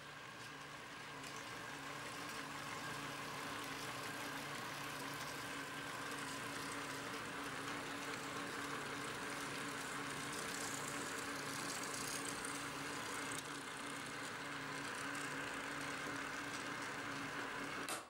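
Small electric motors driving a Magna Rail moving-car system on a model layout, running with a steady hum that builds over the first couple of seconds, then cuts off suddenly at the very end.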